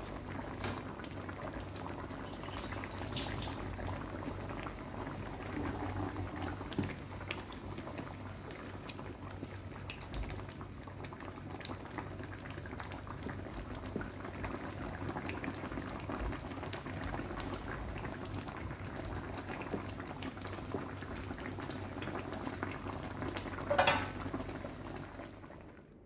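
Fish-roe and innards soup bubbling at a steady boil in a metal wok, stirred now and then with a wooden spatula. A brief knock, the loudest sound, comes about two seconds before the end.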